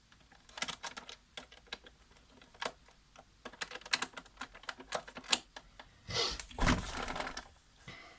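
Irregular small clicks and ticks of metal tweezers picking at a loosened screw and tapping the plastic housing of a coffee machine. Around six seconds in there is a longer scraping, rubbing sound.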